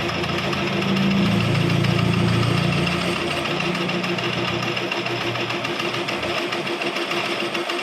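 Lathe running, with a steady machine noise and a fast, even pulsing tone. A lower drone swells in the first seconds and fades out about five seconds in.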